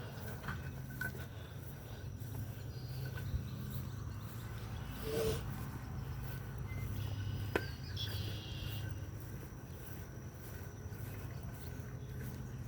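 Outdoor ambience: insects chirping faintly in a steady repeating pattern over a low steady hum, with a short louder sound about five seconds in and a single sharp click a little later.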